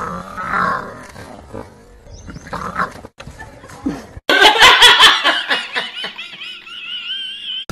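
A dog making noises as it scuffles with a fake tiger. About four seconds in, loud laughter from two women begins, ending in a long high-pitched squeal.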